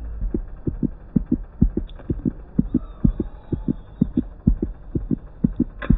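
Fast heartbeat sound effect, a run of short low thumps about three to four a second, the usual cue for nerves. A single click comes near the end.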